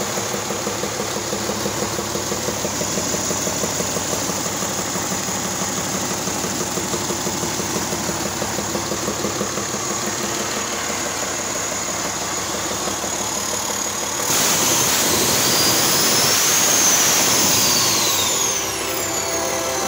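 1994 Caterpillar 3306DI turbocharged six-cylinder diesel engine idling with an even pulsing beat. About fourteen seconds in it revs up and gets louder with a rising turbocharger whistle, which then falls away as the engine drops back toward idle.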